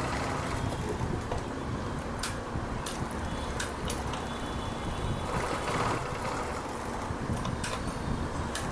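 TVS XL100 BS6 moped's single-cylinder four-stroke engine running at a steady idle with occasional light clicks, after starting on a known-good fuel pump taken from another XL100.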